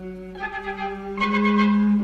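Instrumental film score: held notes played together, with new notes coming in about half a second in and the music swelling louder a little past one second.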